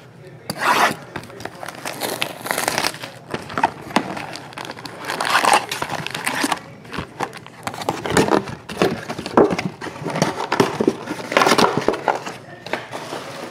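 Plastic shrink wrap on a trading-card hobby box crinkling as it is cut and pulled off, then foil card packs rustling as they are lifted out of the box and stacked. The crinkling comes in irregular bursts.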